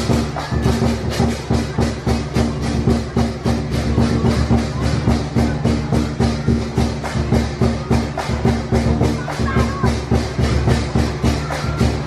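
Lion-dance percussion: drum and clashing cymbals beating a fast, steady rhythm of about five strokes a second.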